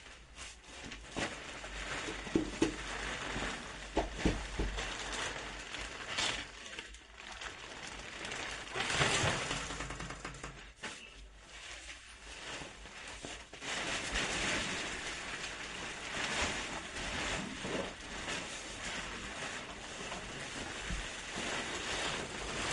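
Handling noise from moving and unpacking bed parts. There are several sharp knocks and clicks in the first few seconds, then long stretches of rustling.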